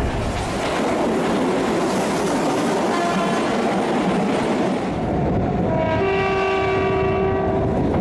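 A Keihan 8000-series train rushes past at speed with loud wheel and air noise. About six seconds in, its emergency horn sounds one long, steady blast of several tones together.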